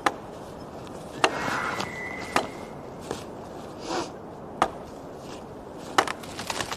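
Slow, irregular footsteps with sharp cracks, about seven spread over several seconds, over a steady background hiss.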